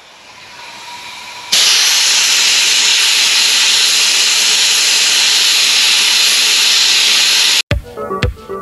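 Compressed-air abrasive blaster gun spraying walnut-shell media against an engine block, a steady loud hiss. It is quieter at first, comes on full about a second and a half in, and cuts off near the end, where electronic dance music with a beat starts.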